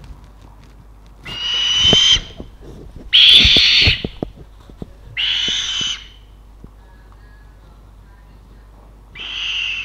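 An owl being hand-fed fish gives four harsh hissing screech calls, each just under a second long with a steady whistle-like tone inside, the last one starting near the end. Sharp clicks sound around the second call.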